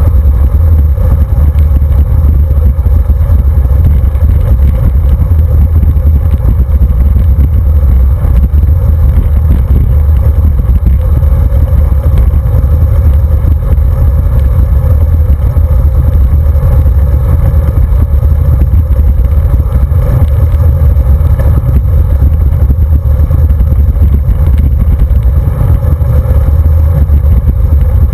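Wind buffeting the microphone of a handlebar-mounted camera on a road bicycle riding along asphalt, with road vibration: a loud, steady low rumble.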